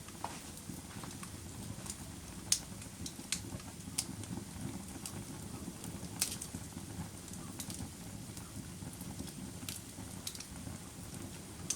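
Wood campfire burning: a steady low rush of flame with irregular sharp crackles and pops. The loudest snaps come about two and a half and six seconds in.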